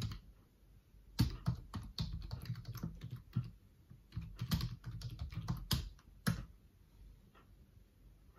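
Typing on a computer keyboard: a run of quick, irregular keystrokes that grow fainter and sparser near the end.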